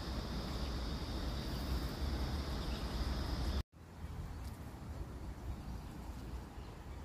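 Outdoor ambience: a steady high-pitched insect drone over a low rumble, cut off abruptly a little past halfway, then quieter outdoor background.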